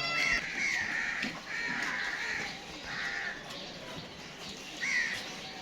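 Birds calling: a quick run of repeated calls in the first three seconds, then another call near the end.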